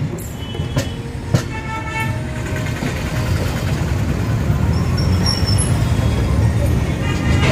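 Passenger express train running, a steady low rumble with two sharp clicks of the wheels over rail joints early on. A horn sounds briefly about a second and a half in, and the rumble grows louder in the second half.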